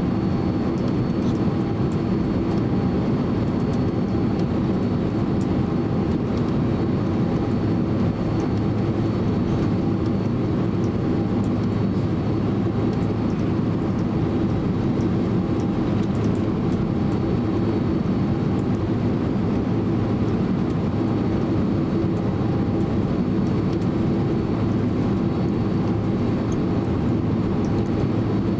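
Steady cabin drone inside a Boeing 767-300 twinjet taxiing, its engines and ground roll giving a constant low rumble and hum with a faint high whine over it.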